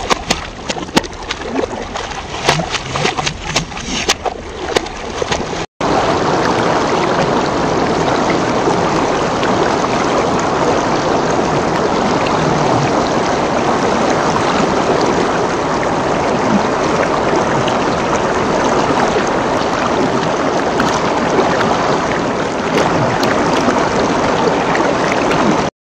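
Children splashing in a shallow river, with many sharp splashes. About six seconds in it cuts abruptly to a steady rush of fast-flowing river water.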